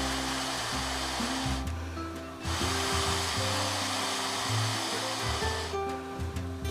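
Background music with held bass notes that change in steps, over a steady rushing hiss that cuts out briefly twice, about two seconds in and again near the end.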